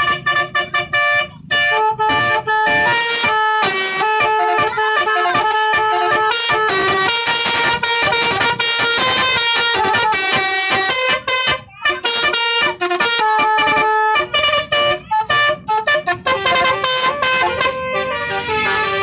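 A bus's 'basuri' musical horn playing a fast melody of short, distinct tooting notes in loud phrases, with brief breaks between them.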